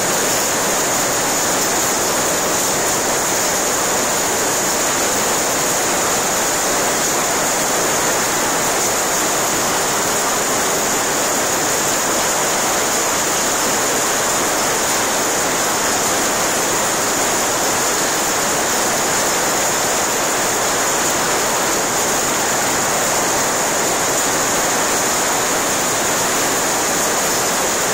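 Heavy hail falling: a steady, dense rush of hailstones striking gravel and the plastic sheeting of greenhouses, with no let-up.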